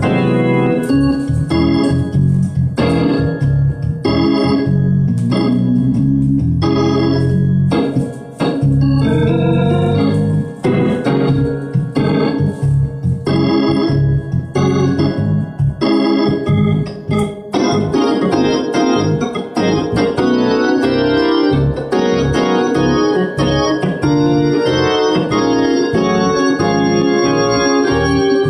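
Two-manual drawbar console organ being played: chords in short rhythmic stabs, turning about two-thirds of the way through into a fuller, continuous passage.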